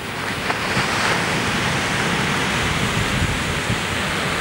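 Ocean surf washing steadily onto a sandy beach, mixed with wind buffeting the microphone as a low rumble. The surf swells a little about half a second in.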